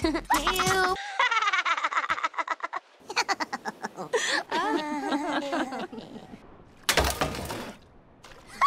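Animated cartoon character's laughter, a woman's voice laughing in a string of short clips cut one after another. A short burst of noise comes about seven seconds in.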